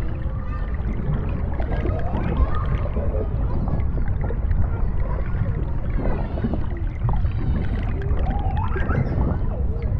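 Underwater ambience: a steady low rumble with wavering tones gliding up and down over it.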